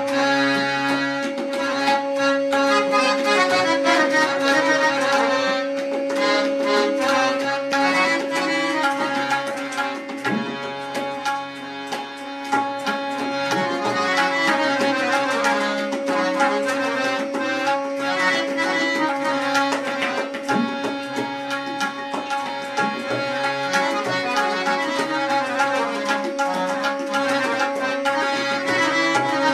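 Tabla solo: dense, fast strokes on the tabla pair, accompanied by a harmonium playing a melody over a steady held drone note.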